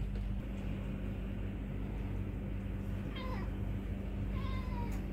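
A cat meows twice, about three seconds in and again about a second later, the first call falling in pitch and the second held level, over a steady low hum.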